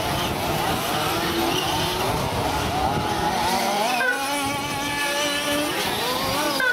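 Several 1/8-scale nitro RC buggy engines running at high revs, their pitch rising and falling as the buggies accelerate and slow for the turns. Several distinct notes overlap, steadier after about four seconds.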